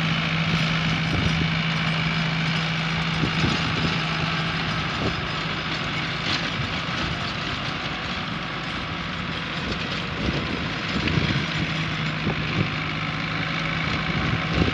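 Sonalika tractor's diesel engine running steadily while it pulls a rotavator tilling a dry stubble field. The engine hum fades somewhat in the middle and grows louder again near the end.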